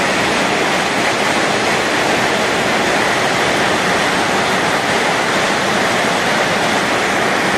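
Steady, loud rushing of water from rain and floodwater, an even hiss that cuts off abruptly at the end.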